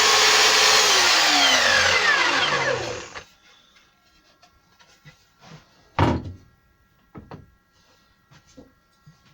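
An electric power tool's motor runs loudly, then winds down over about three seconds, its pitch falling as it stops. A few knocks follow, the loudest about six seconds in.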